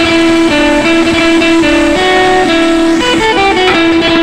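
Background music: a plucked guitar playing a melody over chords.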